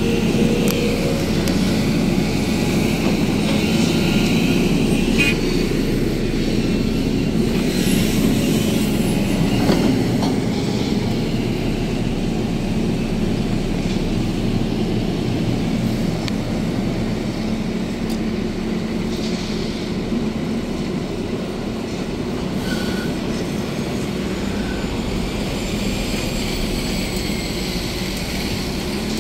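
Excavator at work: its diesel engine runs steadily under load with a constant low hum, and there are a few short metallic knocks and squeaks from the machine.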